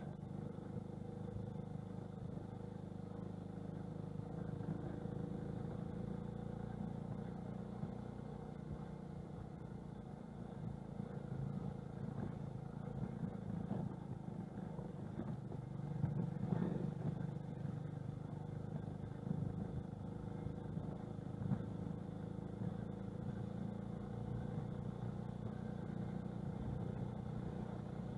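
TVS XL 100 moped's small single-cylinder four-stroke engine running steadily while riding over a gravel road, with tyre and chassis rattle and a few sharp jolts over bumps, the biggest about halfway through.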